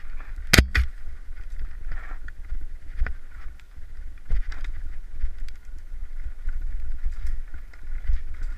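Mountain bike riding fast down a loose, rocky trail, heard through a helmet camera's microphone: a steady rumble of wind buffeting the microphone, with sharp knocks and clatters as the wheels strike rocks, the loudest pair about half a second in.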